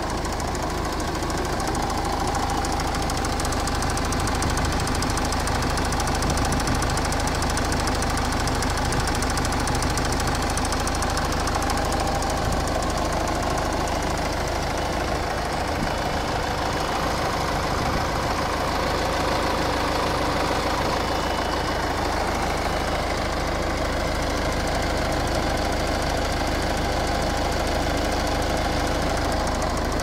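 Ford Kuga's Duratorq TDCi diesel engine idling steadily, with a clicking from the engine bay.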